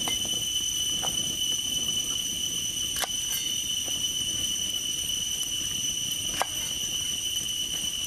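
Steady high-pitched drone of insects, with a few sharp knocks of a cleaver striking a wooden chopping board, the clearest about 3 and 6 seconds in.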